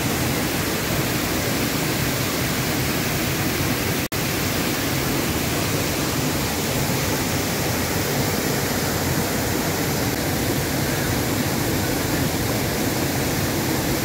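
Waterfall in heavy monsoon flow, a steady dense rush of falling water, with a split-second break about four seconds in.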